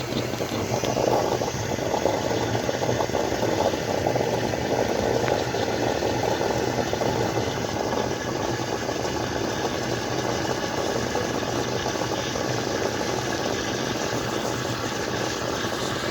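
De'Longhi EC9 espresso machine steaming milk through its milk frother attachment: a steady hiss with a low machine hum, the steam working through the last of the milk in the jug.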